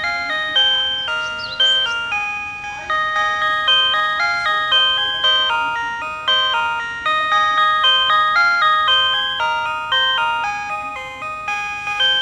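PATLITE electronic annunciator on a Tobu Railway platform playing the looping signal-clearance melody, a run of chime-like electronic notes, each struck and then fading, two to three a second. It tells the crew of a one-man train that the departure signal has cleared.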